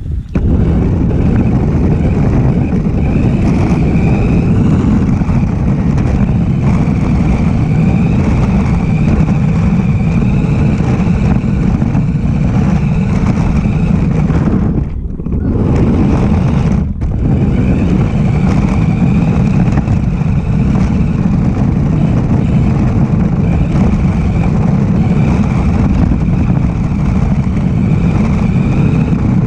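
Radio-controlled car driving, a steady loud rumble with a faint whine that wavers in pitch as its speed changes, briefly dropping away twice about fifteen and seventeen seconds in.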